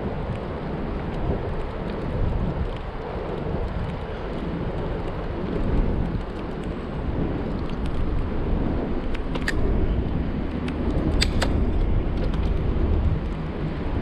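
Wind buffeting the microphone and road noise from a moving bicycle, with a few short sharp clicks about nine and a half and eleven seconds in.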